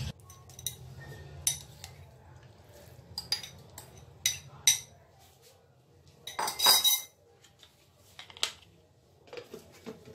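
Clinks and scrapes of a utensil against a glass bowl and a stainless-steel mixer-grinder jar as boneless chicken pieces are moved into the jar. A louder clatter comes about six and a half seconds in, and a few knocks near the end as the jar's lid is fitted.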